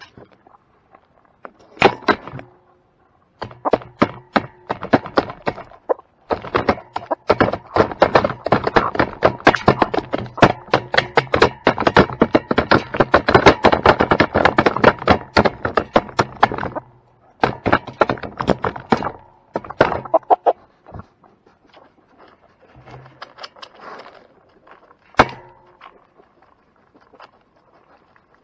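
Rapid, dense tapping and knocking on wood: a few separate knocks, then a long quick run of taps for about ten seconds, then scattered taps and one sharp knock near the end.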